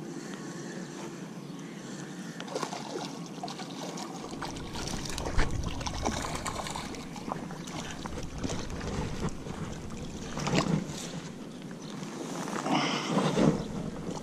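A hooked bass splashing and thrashing at the surface as it is reeled in to the bank and landed, with knocks and rustling of handling close to the microphone.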